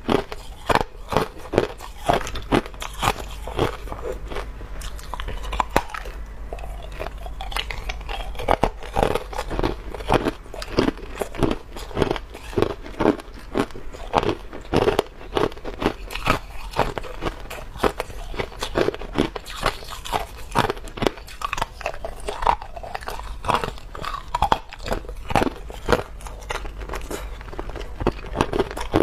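Clear hard ice being bitten and crunched between the teeth, close to a clip-on microphone: a fast, irregular run of sharp cracks and crunches as the pieces are chewed up.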